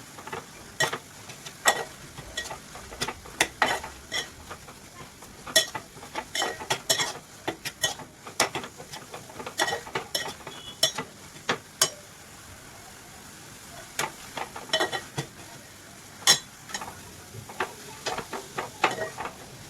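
A spoon or spatula stirring and scraping in a frying pan, with irregular sharp clinks against the pan over a faint, steady sizzle of frying.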